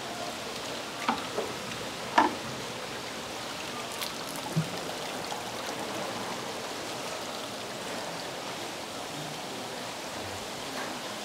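Steady rush of running, bubbling water from aerated live-fish tanks, with a few sharp plastic knocks and clatters in the first five seconds as a landing net and plastic basket are handled; the loudest knock comes about two seconds in.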